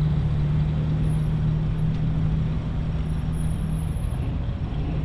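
A motor vehicle's engine running close by as a steady low drone over a rumble, loudest near the start and easing slightly after.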